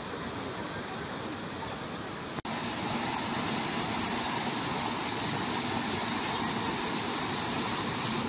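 Water rushing over small stepped weirs in a stone-lined canal, a steady rush. The sound drops out briefly about two seconds in, and after that the rush is louder and brighter.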